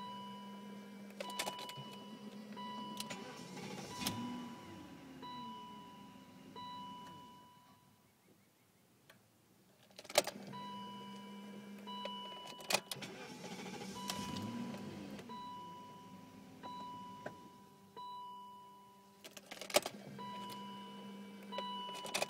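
BMW E38 engine starting and stalling over and over: each time it catches with a click, runs a few seconds with a steady hum while a high warning beep pulses on and off, then sags and dies out. This happens three times, about ten seconds apart, which is the car's random start-then-stall fault.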